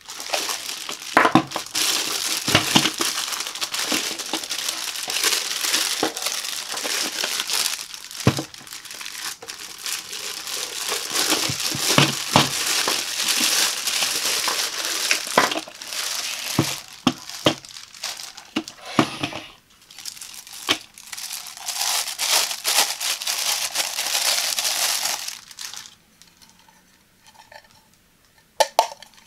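Clear plastic packaging bag crinkling and rustling as it is handled and worked off a plastic egg cooker, with many small sharp crackles and knocks. The rustling stops shortly before the end, leaving a few light taps of hard plastic.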